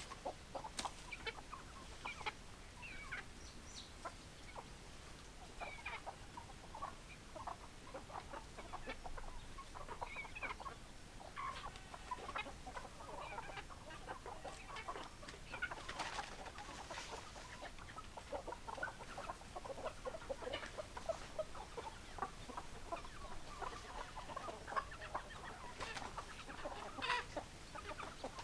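A flock of chickens clucking, with many short overlapping calls throughout.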